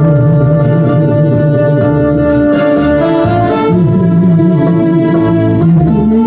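Instrumental music: held chords over a moving bass line, played steadily without a break.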